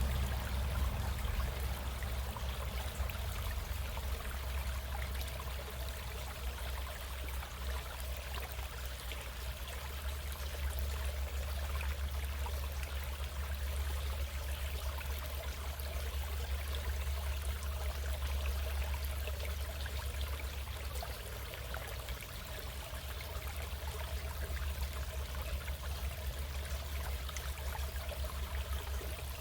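A stream running steadily, an even rush of flowing water with a strong low rumble underneath.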